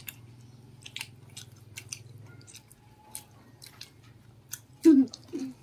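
Scattered crisp clicks and crunches of people eating crunchy battered fried food by hand. A steady low hum runs underneath, and a short loud voice-like sound comes about five seconds in.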